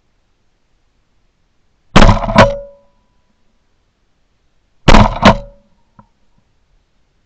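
Two shotgun shots fired at a flying dove, about three seconds apart. Each is a sharp blast followed closely by a second crack with a brief ringing tone.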